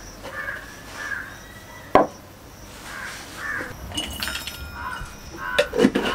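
Glass spice jars and small brass cups being handled and set down: a sharp knock about two seconds in, clinks with a brief ringing around four seconds in, and a quick run of knocks and clatter near the end.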